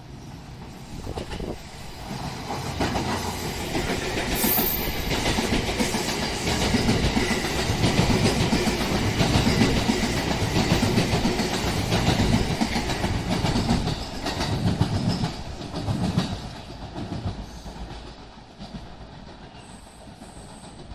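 Electric commuter train running past on the rails, its wheels clacking rhythmically over the rail joints; the noise builds up over the first few seconds, stays loud through the middle and fades away near the end.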